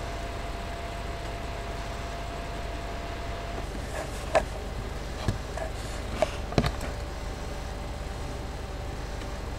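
Steady low hum and hiss from the recording microphone, with a faint steady whine that stops about three and a half seconds in. Then a handful of sharp computer-mouse clicks between about four and seven seconds in.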